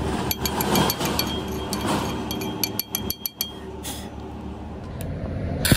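A run of light metallic clinks and ticks over a steady low workshop hum during weld repair on steel. Right at the end a welding arc strikes and starts crackling and hissing.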